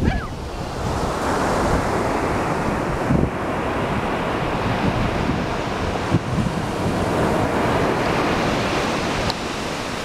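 Ocean surf breaking and washing up the beach, a steady rush, with wind buffeting the microphone in low rumbles and a few brief thumps.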